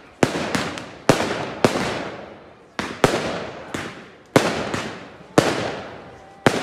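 Aerial fireworks display: shells bursting in sharp bangs roughly once a second, with a few smaller pops between them. Each bang trails off in a fading rumble of echo over about a second.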